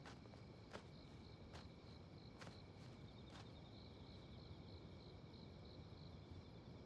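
Faint night ambience of crickets chirping steadily, with about five soft, evenly spaced footsteps over the first three and a half seconds.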